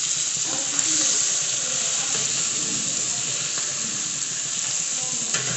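Girimanjas (small fish) sizzling as they fry in a pan: a steady hiss with a sharp pop about a second in and another near the end.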